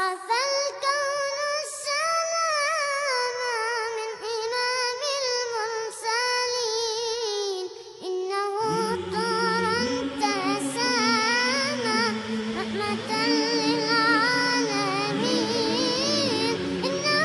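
A nasheed sung in Arabic by a high solo voice, with a wavering, ornamented melody. About halfway through, a fuller backing of lower sustained parts comes in under the voice.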